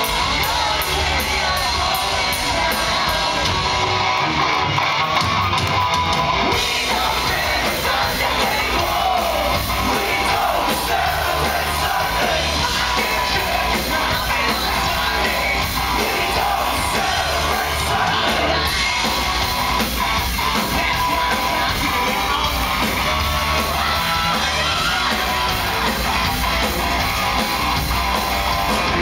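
Live hard rock band playing loud electric guitars, bass guitar and drums, with a singer, heard from among the audience, with shouts from the crowd.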